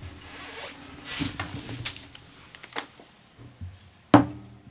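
Rustling and scattered clicks and knocks of people getting up and changing seats at a table, picked up by the table microphones, with one loud, sharp knock about four seconds in.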